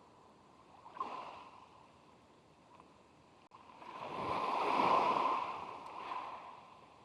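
A sea wave breaking and washing up the beach: the surf noise builds over about a second, peaks, then drains away over the next two seconds, with a short splash about a second in.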